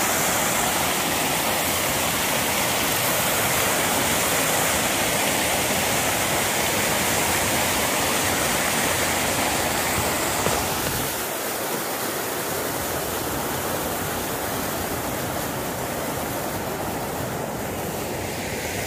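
Steady rush of water pouring over a small falls, a dense hiss with no pauses; it gets a little quieter about halfway through.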